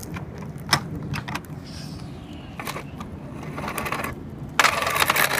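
Razor Flash Rider 360 plastic ride-on trike rolling over concrete, with scattered clicks and rattles, then a loud burst of rushing noise about four and a half seconds in that lasts about a second.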